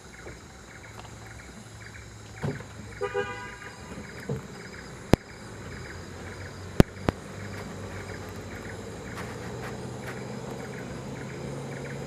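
Vehicle engine running at low speed on a dirt road, a low steady hum that grows louder in the second half. A short toot comes about three seconds in, and three sharp clicks come around five and seven seconds in.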